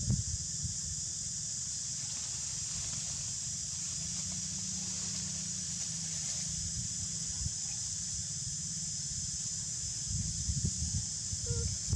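Outdoor ambience: a steady high-pitched hiss with a low rumble of wind on the microphone, the rumble turning gusty near the end.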